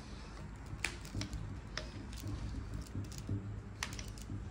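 A few scattered light clicks and taps as the small metal arm joints and fittings of a ceiling lamp are handled and tightened by hand.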